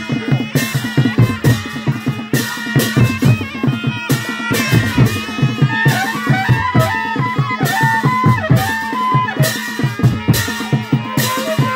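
A traditional Nepali wedding band playing: clarinets and trumpet carrying a wavering folk melody over drums and sharp percussion strokes in a fast, steady beat.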